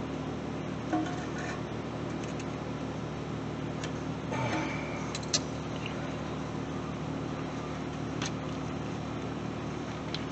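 A few faint metallic clicks and one short scrape about halfway through, as the rear main seal housing of a 5.9 12-valve Cummins is pushed and wiggled by hand over the crankshaft, with the seal still catching. Under it runs a steady low hum.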